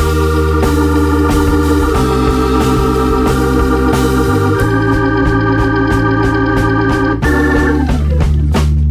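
Background music: sustained organ-like chords held over a low bass, the chord changing every two to three seconds.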